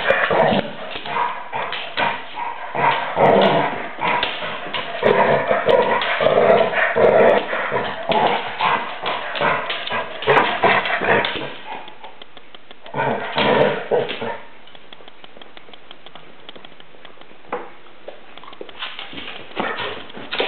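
A chocolate Labrador and a Chihuahua barking and yapping as they play-fight. The sound is dense and busy for about the first twelve seconds, comes in one more short burst around thirteen seconds, then goes quieter with only a few brief sounds until a last burst near the end.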